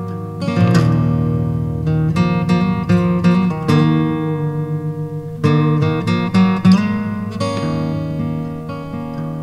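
Background music: an acoustic guitar playing, with chords plucked and strummed at irregular intervals, each ringing out and fading before the next.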